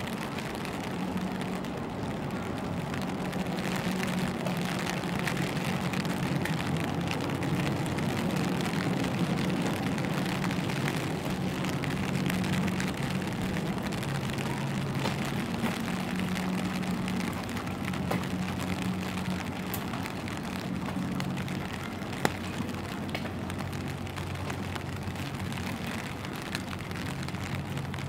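Steady rain falling, with many small drops ticking on an umbrella overhead, over a low steady hum. There is one sharp click about 22 seconds in.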